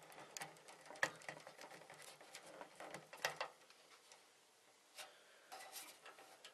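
Scattered light clicks and small rustles of a wire being handled and its push-on connector fitted onto a circuit-board terminal.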